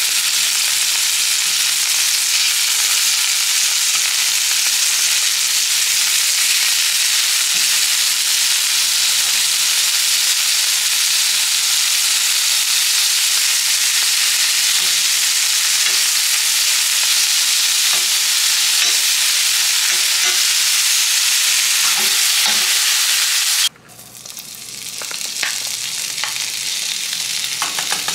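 Food sizzling steadily in an oiled frying pan, with a few faint clicks of a utensil. Just before the last few seconds the sizzle cuts out sharply, then builds back up.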